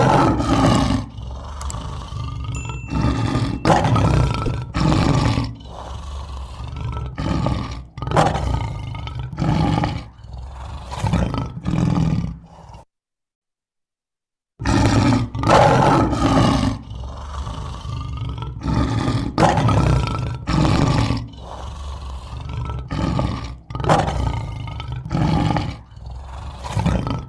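Lion roaring: a series of deep roars and grunts one after another, broken by about two seconds of silence midway, after which the roaring resumes.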